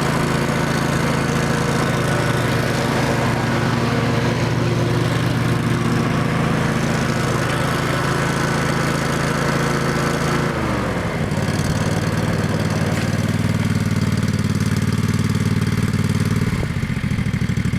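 Engine of a 2005 Exmark 36-inch Viking hydro mower running steadily at speed, then throttled down about ten seconds in to an even idle, which the owner calls perfect.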